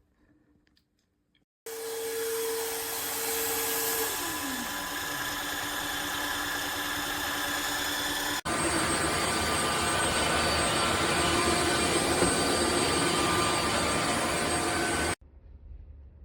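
Wet-dry floor vacuum running: a loud, steady motor noise that starts suddenly, with a whining tone that slides down in pitch a couple of seconds in. Its sound changes abruptly about halfway through, and it cuts off suddenly near the end.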